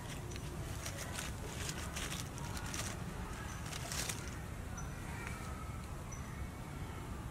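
A young macaque scratching and tearing at a coconut husk on a dry log, a run of crackling, rustling clicks that stops about four seconds in. Faint short bird chirps and a steady low rumble sit underneath.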